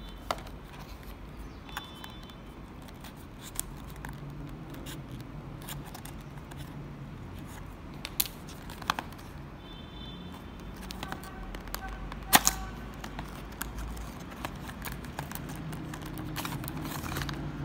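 Small cardboard model box being handled and opened: scattered clicks, taps and rustles of fingers on the card and its end flap, the sharpest about twelve seconds in, over a steady low hum.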